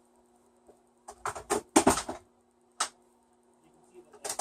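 A quick run of sharp taps and knocks, then two single knocks, from a clumped onion-salt shaker being shaken and tapped over vegetables.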